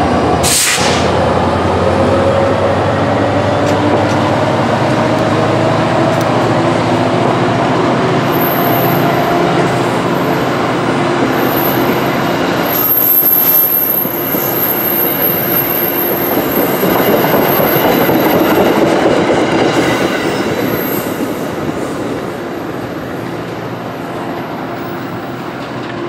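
Diesel-hauled commuter passenger train passing close at speed. The locomotive's engine drone falls in pitch as it pulls away, then the coaches' wheels rumble and clack over the rails with a thin high wheel squeal. The sound fades near the end as the train recedes.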